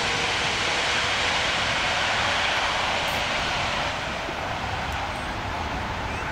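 Jet engine noise from an Airbus A380's four engines with the airliner on the runway: a steady rushing noise that drops a little about four seconds in.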